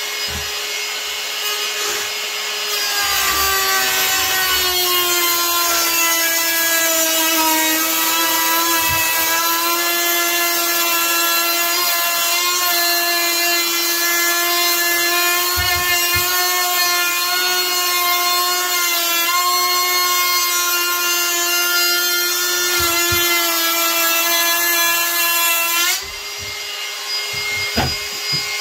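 Ryobi cordless trim router with a Roman ogee bit whining at speed. About three seconds in it bites into the edge of a wooden sill board: it gets louder and its pitch drops a little under load as it cuts the profile. Near the end it clears the wood and its pitch rises back as it spins free.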